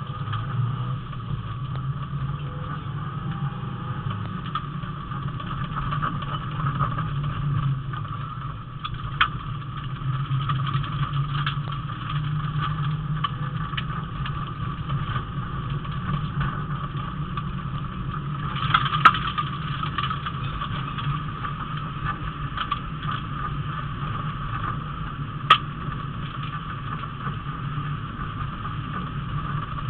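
Rally car engine running steadily under way, heard from inside the cabin, with a few sharp knocks through the car; the loudest knock comes about two-thirds of the way through.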